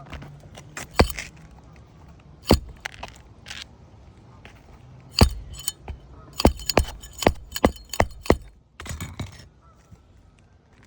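Irregular sharp knocks and cracks from work on asphalt roof shingles during a shingle repair, coming quickest in a run of strikes in the second half.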